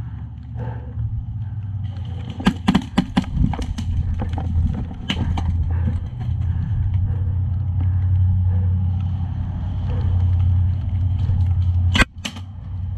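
A steady low rumble on the action camera's microphone, broken by a quick string of sharp airsoft gunfire snaps about two and a half seconds in and a single loud crack near the end.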